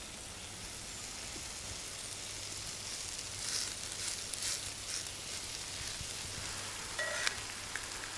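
Grated potato rosti patties frying in oil in a cast-iron skillet: a steady sizzle, with brief louder spurts about three and a half and four and a half seconds in.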